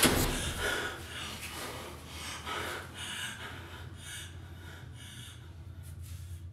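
A frightened young woman panting and gasping, quick ragged breaths that are loudest at first and grow quieter, over a low steady hum.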